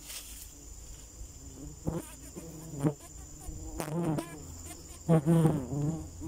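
Insects buzzing around an opened stingless-bee (kelulut) hive: a steady high-pitched drone throughout, with short, lower buzzes that waver in pitch passing close several times, the loudest just after five seconds in.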